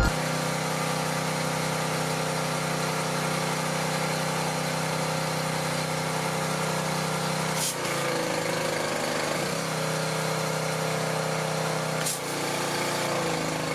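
Small gas engine of a Simpson 2800 PSI pressure washer running at a steady speed, briefly interrupted twice, about 8 and 12 seconds in.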